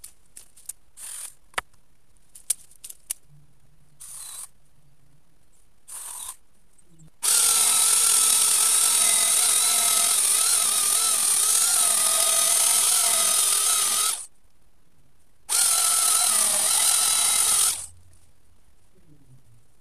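Electric chainsaw plunge-cutting into an old hazel coppice stump. There are two short blips of the trigger, then a steady run of about seven seconds that stops, and a second run of about two seconds. The saw falls silent between runs rather than idling.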